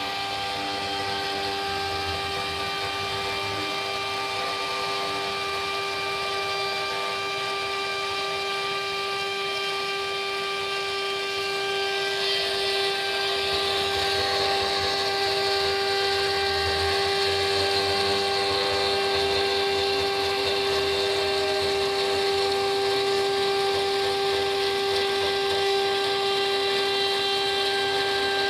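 A JINKA CNC router's spindle whines steadily as its small end mill cuts through 3 mm Dibond aluminium composite panel. The cutting noise grows louder and brighter about halfway through.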